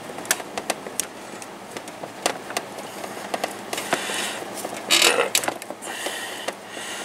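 Rubber fuel line being worked by hand onto the nipple of an inline fuel filter: scattered small clicks and taps, then a louder rubbing, scraping stretch about four to five and a half seconds in, loudest around five seconds.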